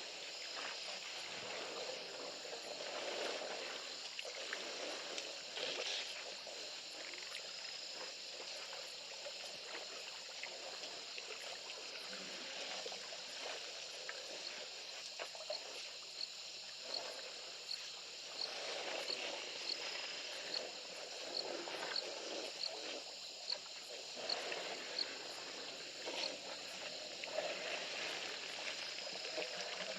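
Water sloshing and splashing as elephants drink at a waterhole, over a steady high insect drone. About halfway through, a run of short, evenly spaced high chirps sounds a little over once a second.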